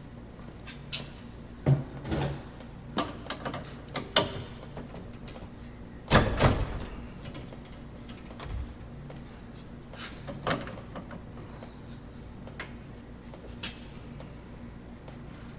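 A wrench working a transmission cooler line fitting: irregular metal clicks and knocks, with the loudest clatter about six seconds in and single clinks later.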